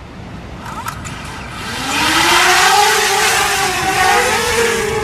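Small quadcopter drone's propellers spinning up with a rising whine about a second and a half in, then lifting off into a loud, steady buzzing whine that wavers slightly in pitch.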